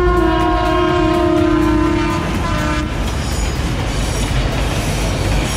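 Diesel locomotive horn sounding one long blast that drops away after about two seconds, with a short tail near three seconds in, then the rumble and clatter of a passing train.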